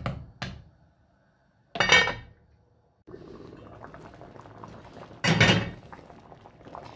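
Wooden spoon stirring and knocking against a large enamelled cast-iron pot of thick bean goulash, two short clatters. Then the goulash simmers with a steady bubbling hiss, and a metal spoon scrapes the pot once about five and a half seconds in.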